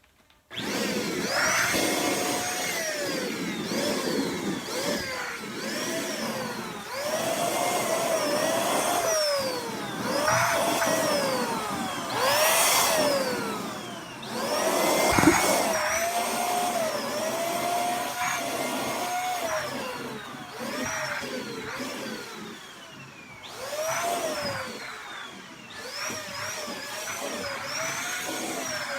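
Vacuum cleaner running, its motor whine repeatedly rising and falling in pitch every second or two.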